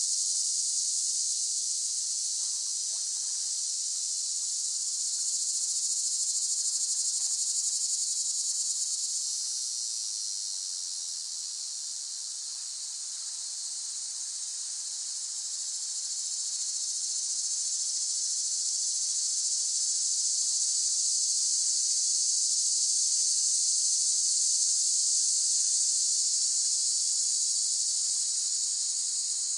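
Cicadas buzzing in a continuous high-pitched drone that swells and ebbs slowly, dipping in loudness in the middle before building again.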